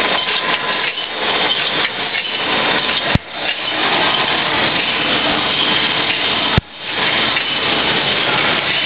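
Loud, steady clattering noise of factory machinery, with no clear rhythm. Two sharp clicks cut through it, about a third and two-thirds of the way in, each followed by a brief dip.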